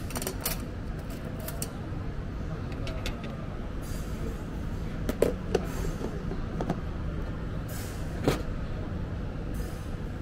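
Steady rumble of road traffic, with a few sharp clinks of a metal spoon against a ceramic plate a little past halfway and another near the end.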